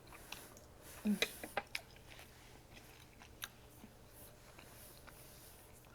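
Close-up mouth sounds of a person chewing a bite of food: wet clicks and smacks, busiest about a second in with a brief closed-mouth hum, then fainter, sparse clicks.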